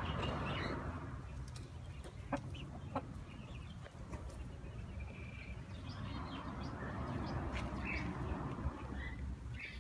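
Chickens clucking, with short calls scattered through, over a steady low rumble; two sharp clicks about two and three seconds in.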